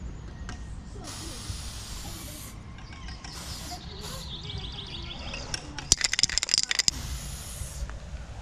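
Aerosol spray-paint can hissing in spurts of about a second as a graffiti piece is painted, with a quick rattling run of clicks for about a second after two-thirds of the way through, the sound of the can being shaken to mix the paint.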